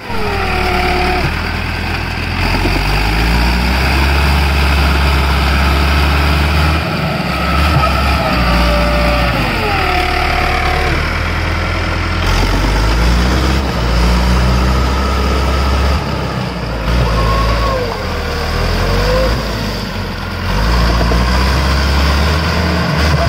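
Mahindra 555 tractor's diesel engine labouring while the tractor is stuck in deep mud, its revs rising and falling every few seconds as the driver tries to drive out and the rear wheels spin. A sliding high tone comes and goes several times over the engine.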